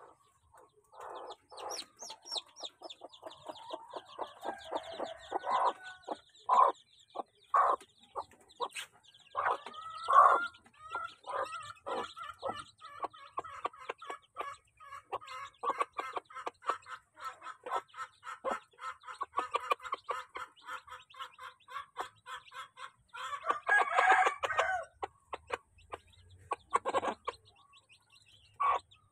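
A hen clucking over a brood of chicks feeding at a bowl. The chicks keep up a fast, high-pitched peeping throughout, and the hen's louder, lower clucks come most thickly in the first third and in a burst about three-quarters of the way through.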